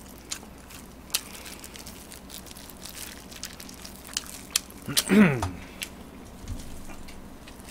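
Close-miked eating of fried chicken: scattered crunchy bites and chewing clicks. About five seconds in, a short vocal sound falling in pitch is the loudest thing.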